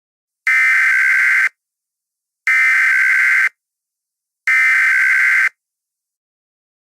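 Emergency Alert System SAME header: three identical one-second bursts of buzzing two-tone data, each a second apart. This digital header, which encodes the alert's sender, event and area, precedes the alert's attention tone.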